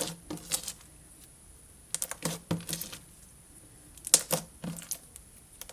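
Stretchy slime with foam beads being squished and stretched by hand, giving scattered sticky clicks and pops in small bunches.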